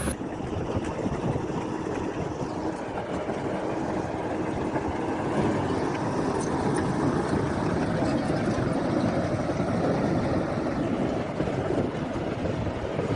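A heavy machine's engine running steadily, with a dense, even noise and no distinct knocks or changes.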